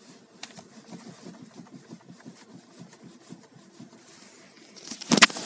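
Steering rack of a Skoda Superb knocking with the car standing and the engine running: a fast, uneven run of dull low knocks. The knock comes from a worn steering rack and can also be felt through the steering wheel. A sharp loud clatter about five seconds in.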